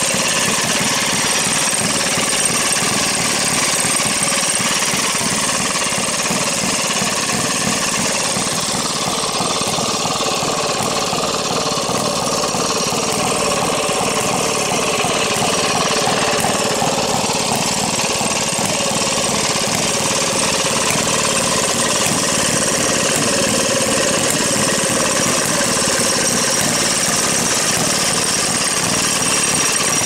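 Two Maytag two-stroke washing machine engines running together, a loud, steady, rapid popping exhaust beat.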